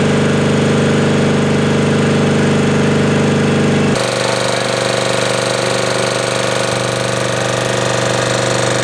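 Tanabe H-64 reciprocating marine air compressor running steadily with a loud, fast mechanical knocking. About four seconds in the sound changes abruptly to a different steady tone.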